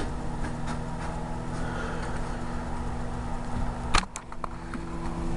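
Hamilton Beach microwave oven running on high, a steady hum, with a sharp click about four seconds in.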